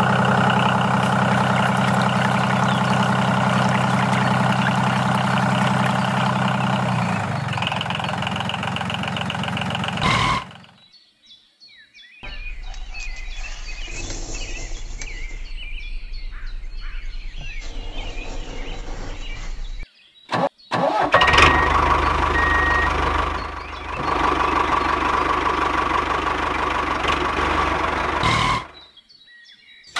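Small engine running steadily, stopping abruptly about ten seconds in. After a short pause a quieter, thinner running sound follows for about eight seconds, then the engine runs again and stops near the end.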